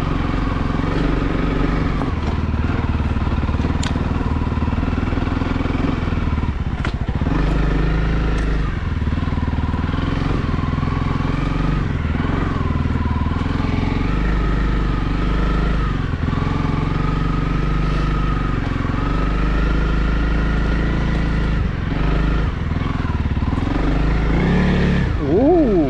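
Honda CRF300L's single-cylinder engine running at low revs, its pitch wavering slightly with the throttle, with a short rise and fall in pitch near the end.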